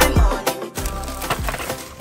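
Background music over the footage. A heavy bass beat hits at the start, then the bass and drums drop out about half a second in, leaving lighter instrument lines.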